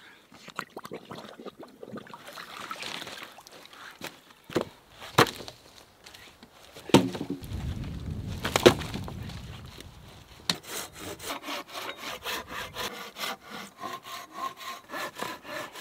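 Wood being handled: scattered knocks, then two loud low thuds of logs about seven and nine seconds in. For the last five seconds a hand saw cuts through wood in even back-and-forth strokes, about three or four a second.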